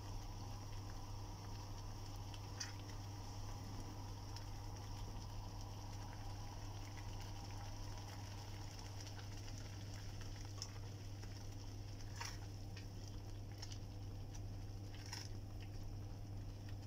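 Thick tomato-based curry gravy simmering in a pan while being stirred with a silicone spatula, with a few scattered soft pops over a steady low hum.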